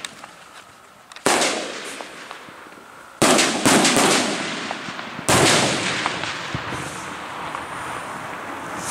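Daytime aerial firework shells bursting with loud bangs: one about a second in, a quick cluster of several around three to four seconds, and another at about five seconds, each trailing off in a long echo. A sharp crack comes at the very end.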